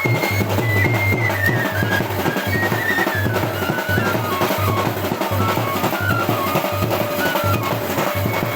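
Loud dance music: a steady drum beat under a high melody line that steps downward.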